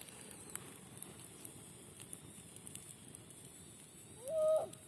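Campfire crackling faintly with scattered sharp snaps. A brief voice-like sound comes near the end.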